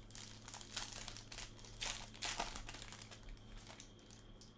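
Clear plastic around a trading card crinkling in irregular rustles as the card is handled and slid free, loudest about two seconds in. A faint steady hum lies underneath.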